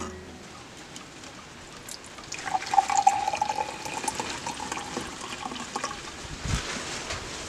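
A liquid is poured in a thin stream into a drinking glass. It splashes and rings steadily for about three and a half seconds, then stops, followed by a low thump shortly after.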